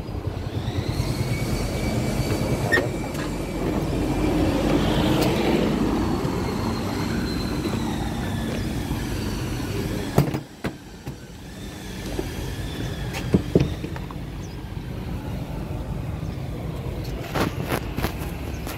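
Motor vehicle engine running steadily on the street, with faint slowly sliding whines in its first half. The noise drops off suddenly about halfway through, and a few sharp knocks come later.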